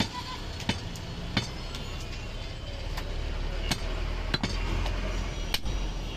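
About seven sharp knocks, spaced roughly a second apart, of a butcher's cleaver striking goat meat on a wooden chopping block, over a steady low hum of traffic.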